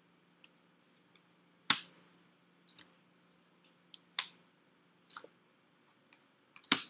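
Tarot cards being drawn and laid down on a table: three sharp card snaps about two and a half seconds apart, with fainter taps and rustles between.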